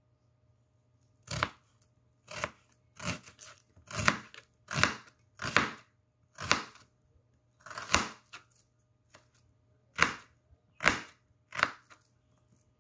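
Kitchen knife slicing through small red onions and striking a plastic cutting board: about eleven separate cuts at an uneven, unhurried pace, with a pause of about two seconds near the end.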